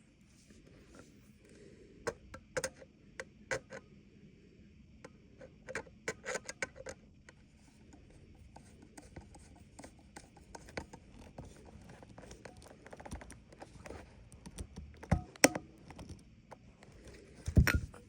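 Scattered clicks and scrapes of a screwdriver working at a stripped screw, with parts being handled; two louder knocks come about fifteen seconds in and just before the end.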